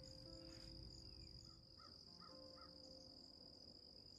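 Faint steady high trill of crickets in an evening insect chorus, with a bird calling three quick times about two seconds in.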